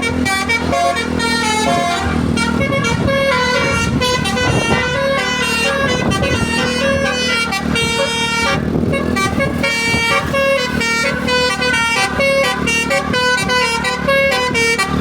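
Bus basuri musical air horn playing a tune: a run of quick stepping notes that goes on without a break, over a steady low hum.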